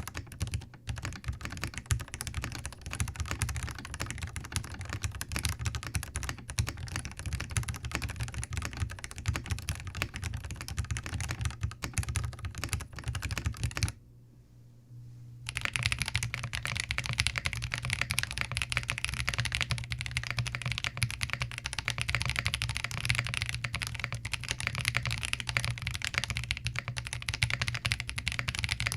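Continuous typing on a Zoom TKL mechanical keyboard fitted with Gateron Yellow linear switches. About halfway through, it breaks off for about a second and a half, then resumes on the same board fitted with Boba U4T tactile switches.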